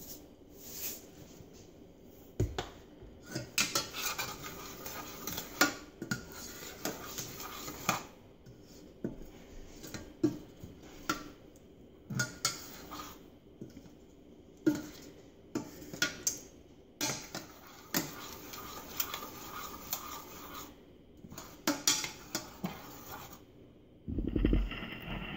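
A white plastic spatula stirring a thin butter sauce in a stainless steel saucepan, knocking and scraping against the sides and bottom of the pan in irregular strokes. Near the end there is a louder, lower rumble for about a second.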